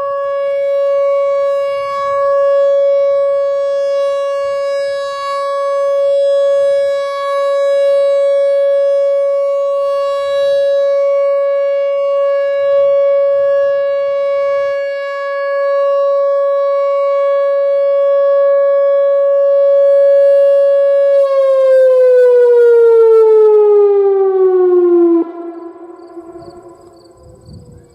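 Whelen Vortex R4 outdoor warning siren sounding its steady Alert tone, the level swelling and fading slightly every couple of seconds. About three-quarters of the way through it winds down, the pitch falling steadily, and the sound then drops away sharply, leaving a faint falling tone.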